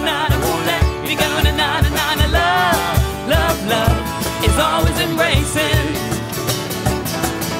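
A song performed by a singer with a band: a sung melody over a steady drum beat of about two beats a second.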